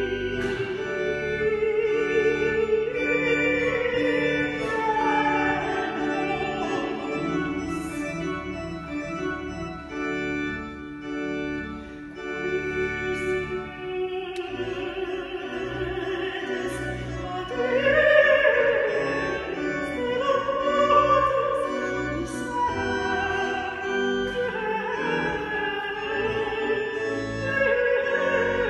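A woman singing sacred music in classical operatic style with a wide vibrato, accompanied by a church organ. Her voice swells to its loudest on a held higher note about two-thirds of the way through.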